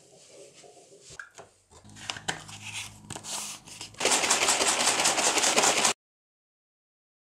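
Plastic protein shaker bottle holding coffee and whey protein, handled with small plastic clicks and scrapes, then shaken hard for about two seconds. The shaking is the loudest part and cuts off suddenly.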